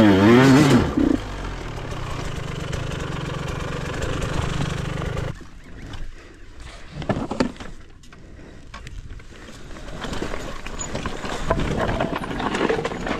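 KTM dirt bike engine revving hard, then running at a steady low note. About five seconds in it drops to a much quieter level with a few scattered knocks, and near the end it picks up again.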